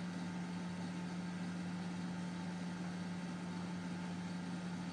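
Steady low hum with a faint hiss over it, unchanging, as from a running motor or fan.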